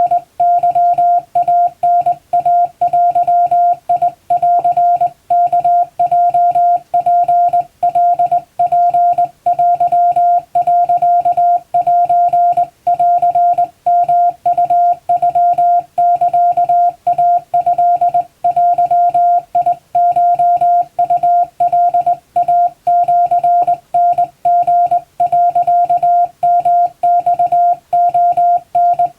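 Japanese Wabun Morse code sent by hand on a telegraph key, heard as a steady mid-pitched CW beep keyed rapidly on and off in dots and dashes, with brief pauses about every second between characters.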